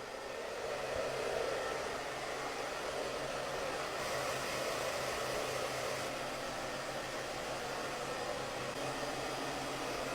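Small handheld pet dryer running steadily, blowing air to dry a freshly bathed kitten: an even rush of air over a faint low hum.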